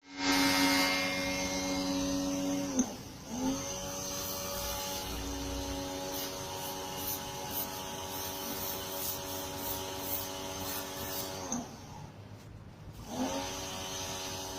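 Electric pressure washer motor and pump running with a steady whine over a hiss. It cuts out and restarts twice, about three seconds in and again near twelve seconds, its pitch sinking as it stops and climbing as it starts up again: the auto-stop shutting the motor off when the gun's trigger is released.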